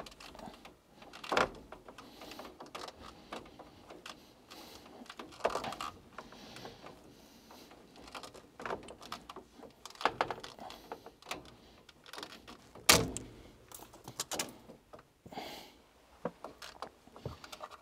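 Irregular knocks, clicks and rattles from cables and fittings being handled against a perforated metal cable tray, with the loudest knock about 13 seconds in.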